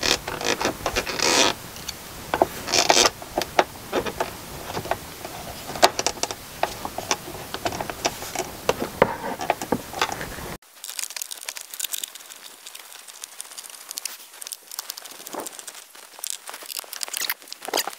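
Small clicks, crinkling and scraping from hand-tightening screws into a Ram ProMaster's plastic cab headliner trim with a screwdriver, the trim and hands rubbing and creaking as they work. About ten seconds in, a low background rumble cuts off abruptly.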